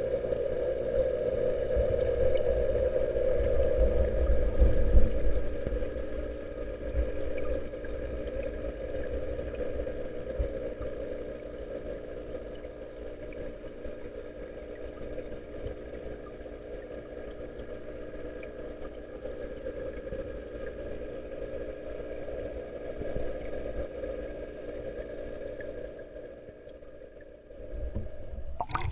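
Water from a koi pond's waterfall splashing and gurgling as a steady rush, with low irregular rumbles that are strongest a few seconds in.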